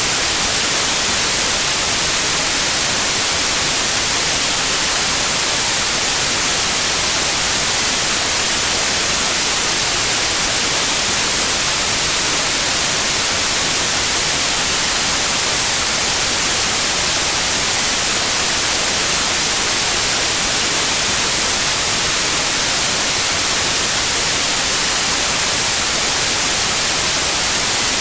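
Synthetic white noise, a steady even hiss, used as tinnitus sound therapy. About eight seconds in, a steady high-pitched pure tone at about 9645 Hz joins the hiss and holds.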